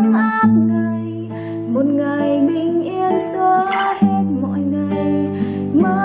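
Classical guitar being played with the fingers, chords plucked and strummed over ringing bass notes; the chord changes about four seconds in.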